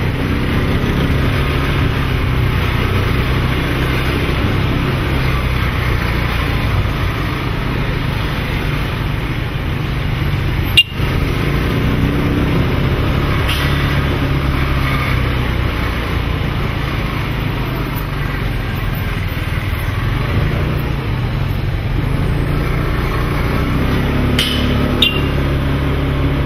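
Motorcycle engine running steadily at low speed through slow city traffic. A single sharp click about eleven seconds in.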